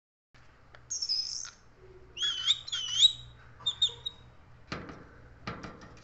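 A rose-ringed (Indian ringneck) parakeet whistling: a falling whistle about a second in, then a run of wavering, looping whistled notes, then a couple of short chirps. A few sharp clicks come near the end.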